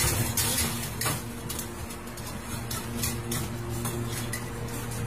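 Light metallic clinks and rattles of a wire pet cage as a cat scrambles about inside it: scattered sharp knocks, several a second at times, over a steady low hum.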